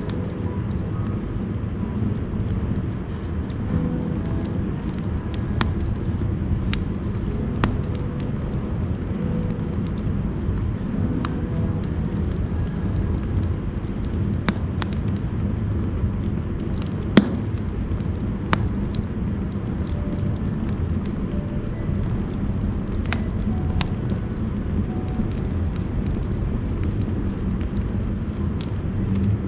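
Firewood burning in a wood stove: a steady low rumble with sparse sharp crackles, the loudest pop a little past halfway. The fire has settled and crackles little because the outer part of the logs has mostly burnt.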